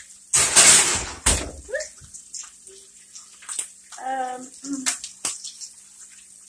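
Bacon frying in a pan, crackling and popping, with a loud rush of noise and a sharp clunk about a second in.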